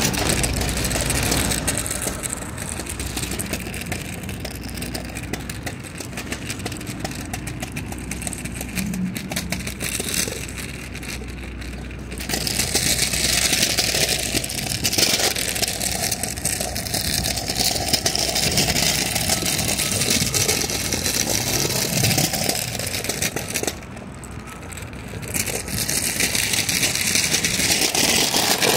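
Kick scooter's small wheels rolling and rattling over concrete sidewalk slabs, a steady noise that drops away for about two seconds near the end.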